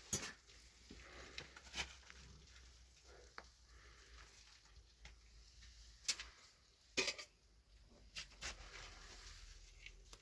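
Quiet background broken by a few scattered short knocks and clicks, the loudest two near the start and about seven seconds in.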